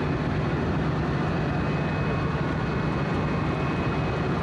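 KZ4A electric locomotive moving slowly close by, a steady low rumble with a faint high whine over it.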